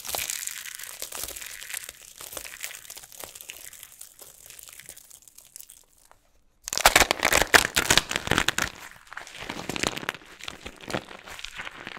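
Dried soap with starch being crushed, a dense crunchy crackling. It fades over the first few seconds, stops briefly about six seconds in, then comes back louder.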